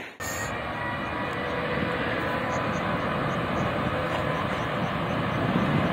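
Distant airliner's engines running on the ground: a steady roar with a faint high whine held at a steady pitch, slowly growing louder.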